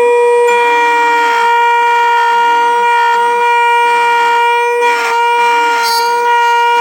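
V8X6 key cutting machine's cutter spindle running with a steady high-pitched whine while milling a brass Toyota edge-cut key blank, with a faint low warble repeating about twice a second underneath.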